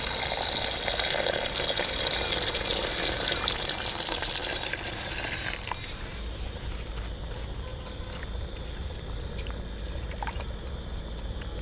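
Water poured steadily from a vessel into a large aluminium cooking pot of rice and chicken. The pour stops abruptly about six seconds in, leaving a steady high insect drone.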